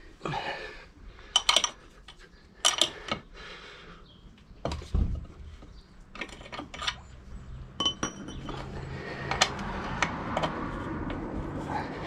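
Steel hand tools clinking irregularly against a motorcycle's rear brake mount and axle as a spanner and Allen key are fitted and worked on a stiff bolt. A low steady rumble rises underneath in the last few seconds.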